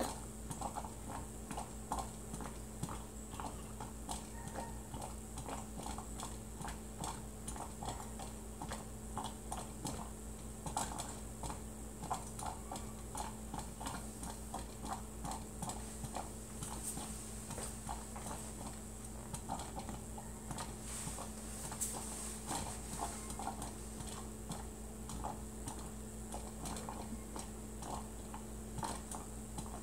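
Silex coffee percolator perking: rapid, irregular little pops and gurgles, several a second, as boiling water spurts up the stem into the glass top, over a steady low hum.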